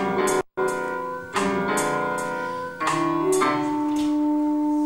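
Music: sustained keyboard chords, each held about a second before the next sets in sharply. The sound cuts out completely for a split second about half a second in.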